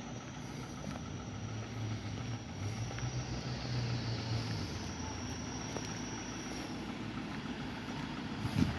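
A motor vehicle's engine running with a steady low hum, a faint high whine over it that fades out about seven seconds in. A single dull thump near the end.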